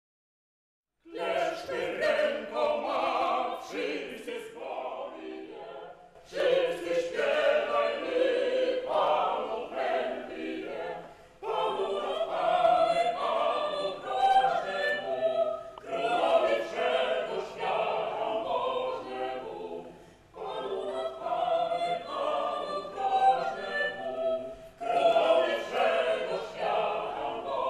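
A choir singing a sacred song, starting about a second in, in phrases of about five seconds with short breaks between them.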